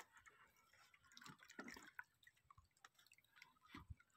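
Near silence: a few faint drips of water and light knocks against the boat, a small cluster of them about a second and a half in and again near the end.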